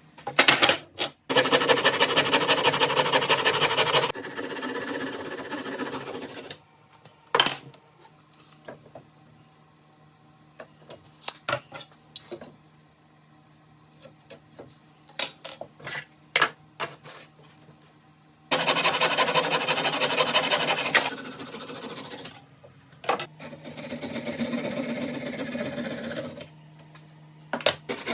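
A power tool working wood runs in two long stretches, each dropping to a quieter run partway through. Sharp clicks and knocks of handling come in between.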